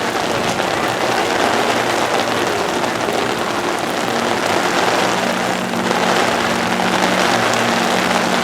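Steady heavy rain falling, with a low steady hum underneath that fades in and out.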